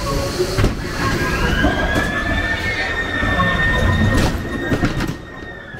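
Ghost-train car rolling along its track, its wheels squealing in long sliding tones over a low rumble, with a few sharp knocks. The sound fades down near the end.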